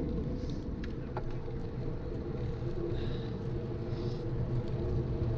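Steady low rumble of wind on the microphone and road-bike tyres on tarmac, riding at about 25–29 km/h.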